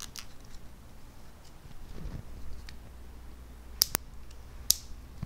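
Hand floral snips cutting silver dollar eucalyptus stems: a few faint clicks, then three sharp snips in the second half, two in quick succession and one more about a second later.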